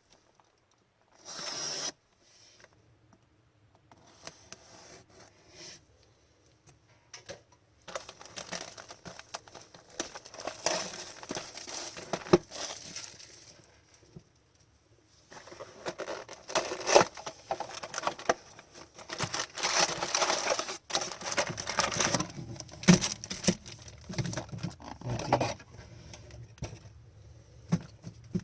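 Trading-card wrappers being torn open and crinkled: plastic and foil packaging on a box of hockey cards, crackling in two long stretches, the first starting about a third of the way in and the second running from about halfway on.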